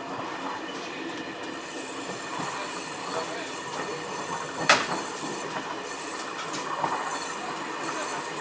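Train wheels running on the rails with a steady rushing noise, heard from the moving train, with one sharp loud clack about halfway through and a smaller one later.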